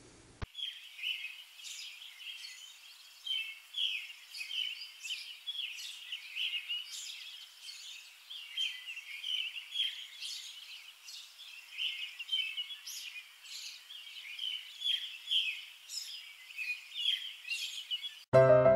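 Birds chirping, a busy run of short, quick calls one after another. Piano music starts in near the end.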